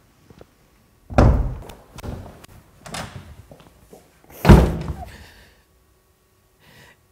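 An interior door banged shut: a heavy thud about a second in and a louder one a little past the middle, with lighter knocks between.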